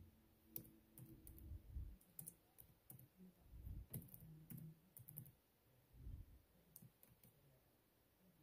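Faint, irregular keystrokes of someone typing on a Gateway laptop keyboard, entering an email address.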